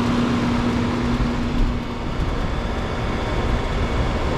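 Coleman Evcon central air conditioner condenser running steadily and really quiet, with its compressor and fan working normally. A steady hum fades out about two seconds in.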